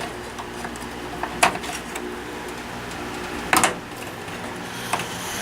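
A few sharp clicks and knocks of desktop computer parts being handled, the loudest about three and a half seconds in, over a steady low hum.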